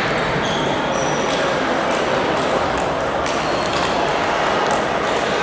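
Table tennis balls clicking off bats and tables during rallies on more than one table, over a steady haze of hall noise.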